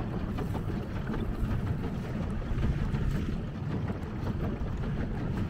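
Wind rumbling steadily on the microphone over water lapping and splashing around a pedal boat moving across the lake.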